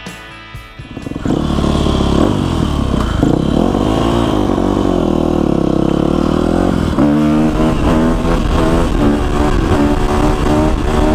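Dirt bike engine running and revving while being ridden, its pitch rising and falling over and over in the second half. Music fades out during the first second.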